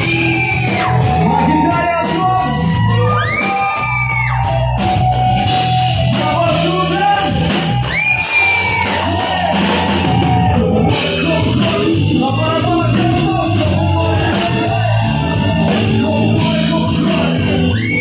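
Live rock band playing: electric guitar, bass and drum kit keeping a steady beat, with a male singer shouting and singing over it. Several long high notes bend up and fall back through the passage.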